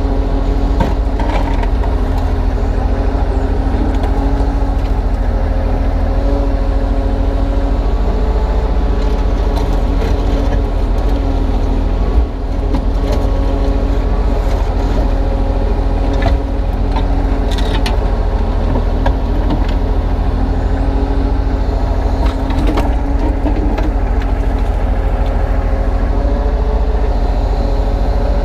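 Kubota U35-3 mini excavator's diesel engine running steadily at working revs while it digs and loads earth, with a few short knocks scattered through.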